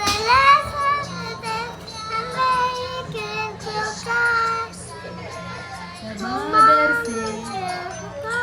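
Children's song: a child's singing voice carrying a melody over a steady musical backing.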